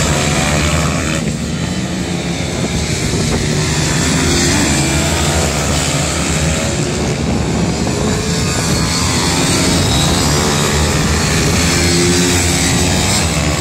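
Several 160 cc pit bike engines racing, revving up and down in a continuous, loud, overlapping drone.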